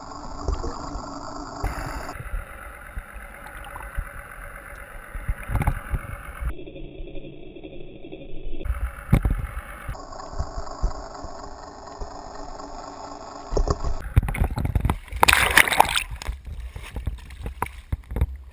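Muffled underwater sound as heard by a camera just below the sea surface: gurgling and sloshing water. Louder splashing near the end, strongest about fifteen seconds in.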